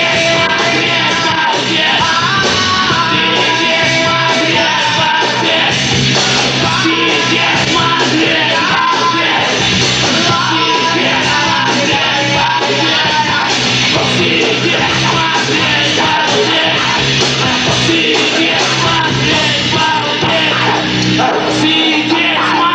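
Loud live rock music from a band on stage, with shouted singing.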